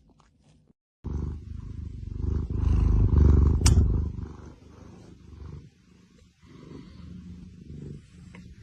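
Cat purring: a low rumble that starts about a second in and is loudest around the middle, then fades, with one sharp click partway through.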